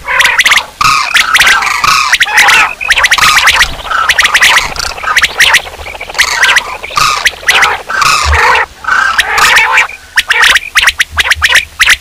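Common quail calling loudly in rapid runs of harsh, clicking calls, with short breaks every second or two: a recorded quail call used as a hunting lure.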